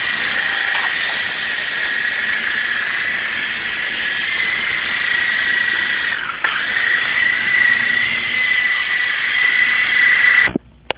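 Small electric RC Apache helicopter's motor and rotor whining steadily at a high pitch, with a brief dip a little past the middle. The whine cuts off suddenly near the end as the motor stops.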